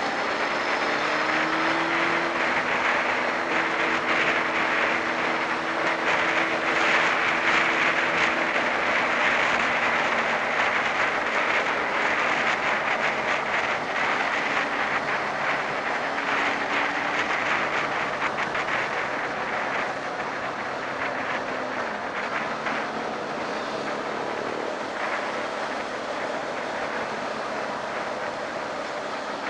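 Wind rushing past a helmet-mounted camera at road speed, over the Honda CB600F Hornet's inline-four engine running underneath. The engine note rises in pitch for the first second or so, then holds fairly steady.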